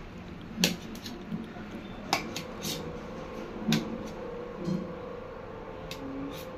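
Kitchen knife cutting soft boiled taro root on a stainless steel plate: the blade clicks sharply against the metal plate several times, irregularly, about a second apart.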